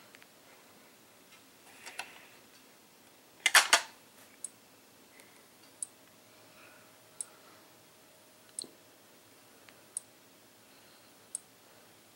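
Simplex 4903-9101 strobe plate flashing in strobe-only mode: its xenon strobe gives a sharp little click with each flash, evenly about every second and a half. A louder burst of knocks comes about three and a half seconds in.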